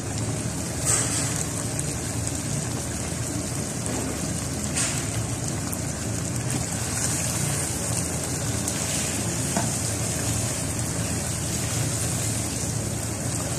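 Chicken in a yogurt-based curry masala sizzling steadily in oil in a nonstick wok, its cooking water dried off so the gravy is frying. There are a couple of light clicks about a second in and near five seconds, and a spatula stirs through it near the end.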